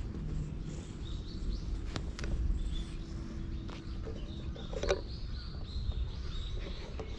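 Small birds chirping in short, repeated high calls over a steady low rumble, with a sharp knock about five seconds in.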